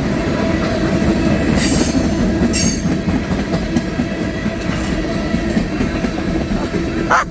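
Empty coal hopper cars of a freight train rolling fast past trackside: a steady rumble and rattle with quick clacks of wheels over the rail. Two brief high-pitched wheel squeals come about two seconds in and again half a second later.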